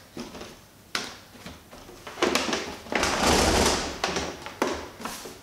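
A plastic Melitta fully automatic coffee machine being handled and turned round on a stone countertop: a few knocks, then a longer scraping slide of the machine that is loudest about three seconds in, with a cloth rubbing on the casing.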